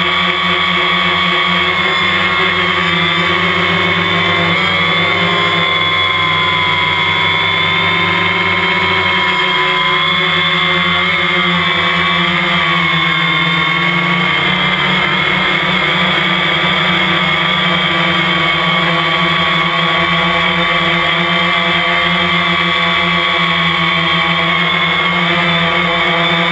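DJI Phantom quadcopter's motors and propellers whining steadily, heard close up from the camera on the drone itself. The pitch wavers slightly as the drone adjusts, sagging a little between about five and ten seconds in, then recovering.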